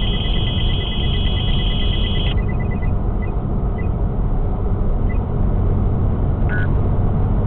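Stinger VIP radar detector alerting to a Multaradar CD speed radar: a rapid series of beeps, with a steady chime-like tone over it for the first two seconds, that thins out and stops about three seconds in, then two short beeps near the end. Under it runs the steady road and engine noise inside the car at motorway speed.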